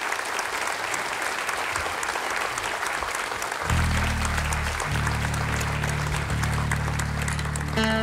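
Audience clapping and applauding after a song. About halfway through, low sustained instrument notes come in under the applause. Near the end, acoustic guitar notes begin the next song.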